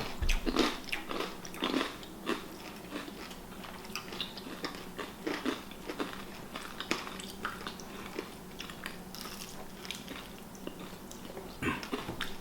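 Close-miked eating: a person chewing and biting food, with many soft, irregular wet clicks and small crunches.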